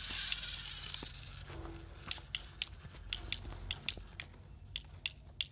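Homemade DC-motor model tractor hauling a mud-loaded trolley over loose soil: gritty crunching and irregular sharp clicks over a faint steady hum, with a short hiss at the start.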